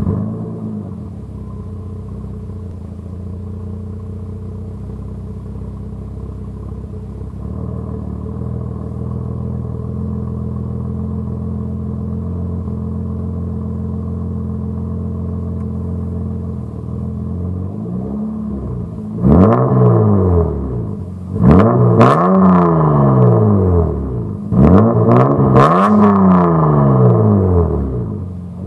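Mazda MX-6's 2.5-litre V6 through a full 2.5-inch exhaust with stock headers, a Magnaflow catalytic converter and a Megan Racing muffler: freshly started and idling steadily for a long stretch, then revved about four times near the end, the pitch rising and falling with each rev.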